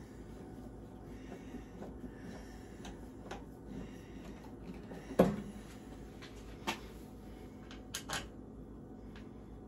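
Sheet-metal breaker-panel front cover being handled as its screws are driven in by hand, with one sharp knock about five seconds in and a few lighter clicks near the end.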